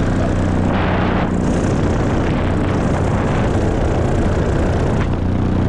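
A paramotor's engine and propeller running steadily in flight, with wind rushing over the microphone. There is a louder gust about a second in.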